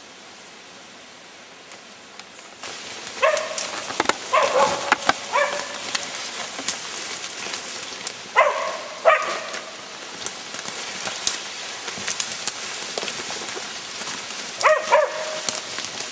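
A dog barking in three short bouts of a few barks each, at about 3, 8 and 15 seconds in, over a steady rustle of brush and footsteps as someone pushes through the undergrowth.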